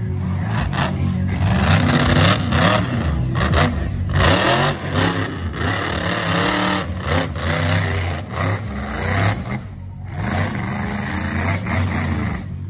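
Monster truck engine revving hard, its pitch rising and falling again and again as the truck spins and slides through mud, with a brief dip around ten seconds in.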